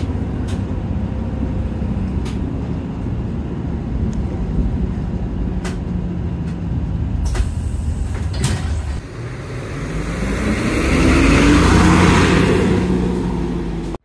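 A bus's engine and road noise heard from inside the passenger cabin: a steady low rumble with occasional clicks and rattles. From about nine seconds in the engine note rises and a hiss swells, loudest near the end, before the sound cuts off.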